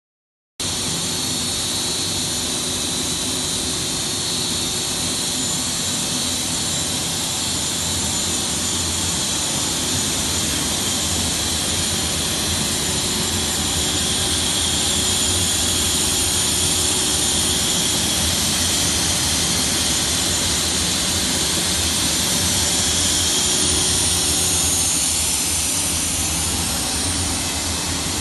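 A PVC ceiling-panel extrusion line running: a steady, loud machine hum with a constant hiss and a thin high whine over it. It starts abruptly about half a second in.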